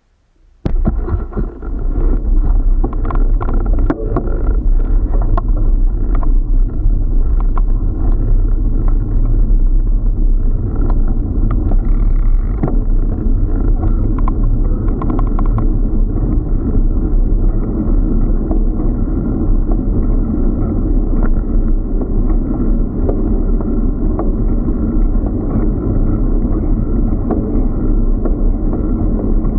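Wind buffeting and rumble on a bicycle-mounted action camera's microphone while riding. It starts suddenly about a second in, with scattered clicks and knocks through the first half.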